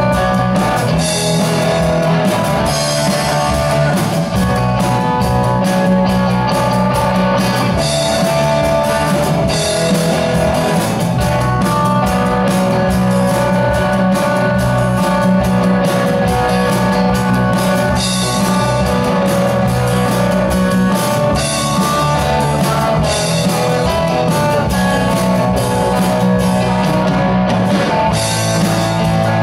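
Live rock band playing, electric guitars over a drum kit keeping a steady beat, with no singing heard.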